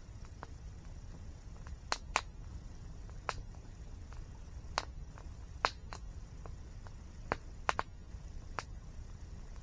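Wood fire crackling: irregular sharp pops and snaps, about a dozen, the loudest around two seconds in and again near six, over a steady low rumble.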